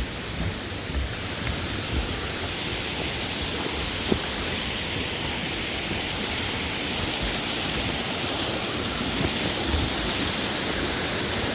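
Fast-flowing mountain stream rushing steadily over rocks, its current running high.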